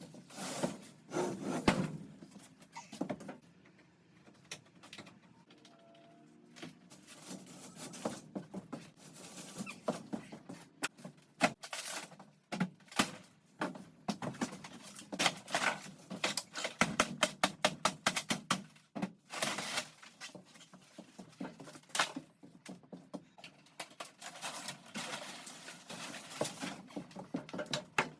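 Hammer striking a screwdriver to break loose stuck screws in a caravan's interior: bursts of sharp knocks, at times several a second, with scrapes and handling sounds between them and a quieter stretch a few seconds in.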